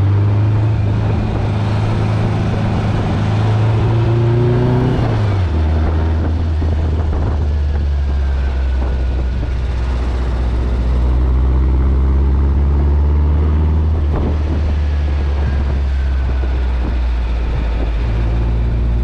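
The Meyers Manx buggy's 1935cc air-cooled Volkswagen flat-four is running under way with the top open. The engine note climbs for about five seconds, drops sharply at a gear change, then holds steady, over wind and road noise.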